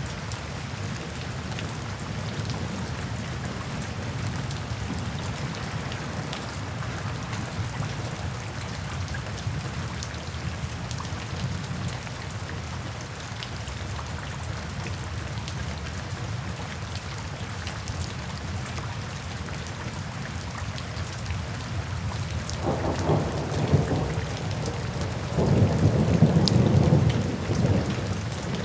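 Steady rain drumming on a tin roof, with thunder rumbling low throughout and swelling twice near the end.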